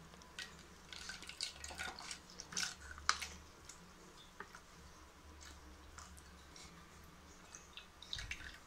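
Milk trickling in a thin stream from a squeezed plastic milk packet into a steel bowl of milk, faint dripping and splashing with scattered small crackles from the plastic packet in the hand.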